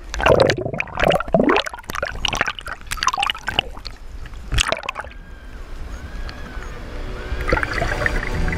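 Seawater sloshing, splashing and gurgling around a waterproof-housed GoPro as it bobs at the sea surface, in irregular loud bursts for about five seconds. Then it quietens, and music fades in near the end.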